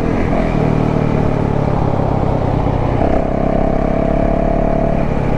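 Yamaha YZ450FX single-cylinder four-stroke dirt bike engine running under way, heard on board while riding at a steady pace. The engine note shifts about three seconds in and then holds steady.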